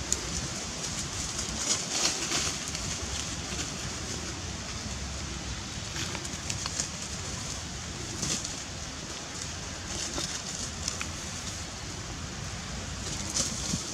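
Dry leaf litter and grass rustling and crackling in short bursts as young long-tailed macaques scamper and scuffle over it, the busiest burst about two seconds in and others scattered through, over a steady outdoor hiss.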